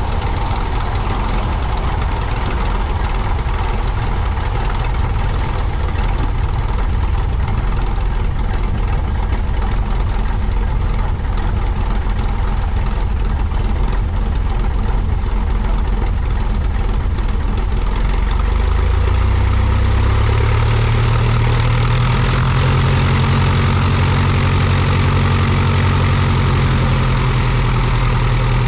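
Cessna 172's piston engine and propeller running at low, taxi power. About two-thirds of the way through, a strong low engine note comes up and the sound grows slightly louder as power is added.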